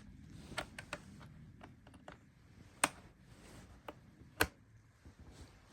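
Scattered sharp clicks and knocks of hands handling a laptop while a USB flash drive is plugged in, two of them louder, about three and four and a half seconds in.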